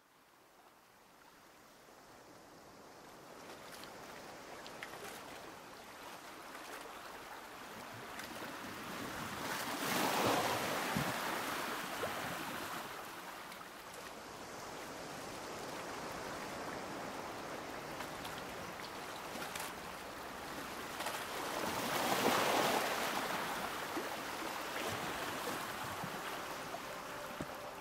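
Ocean waves: a steady wash of surf that fades in and swells twice, about ten seconds in and again some twelve seconds later.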